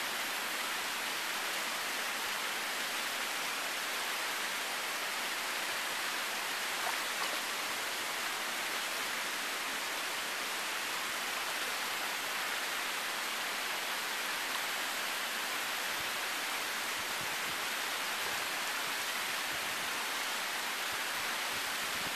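Steady, even hiss of running water.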